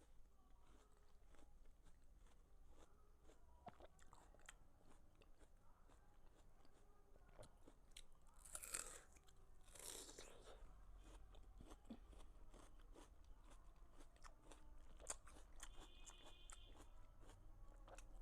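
Watermelon being bitten and chewed close to the microphone: soft crunching and wet chewing clicks, with two stronger juicy bites about nine and ten seconds in.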